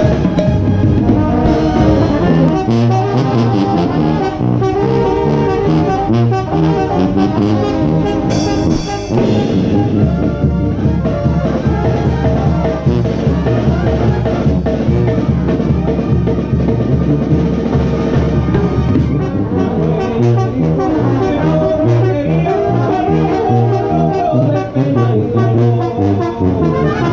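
Mexican banda playing live: trumpets and trombones carry the melody over a tuba bass line, while timbales and a cymbal keep a steady beat.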